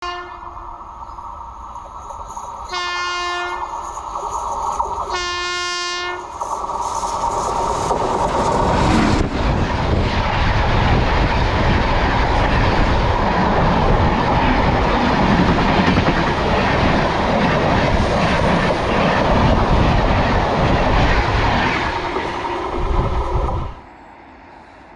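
Indian Railways express train honking its locomotive horn, with two short, loud blasts about three and five seconds in. The train then runs past the crossing, a loud steady din of wheels and carriages for about fifteen seconds that stops abruptly just before the end.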